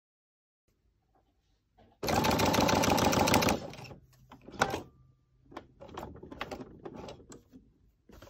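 Brother Innov-is NQ1300PRW computerized sewing machine stitching fast for about a second and a half, starting about two seconds in and then stopping. A few light clicks and rustles of handling follow.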